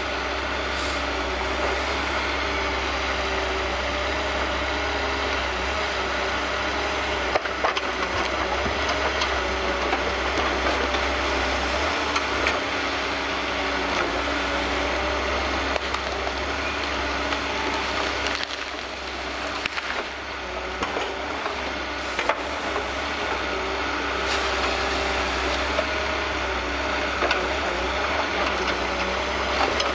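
Diesel engine of an HSM 208F forestry forwarder running steadily while its hydraulic loading crane works, with occasional sharp knocks of logs being grappled.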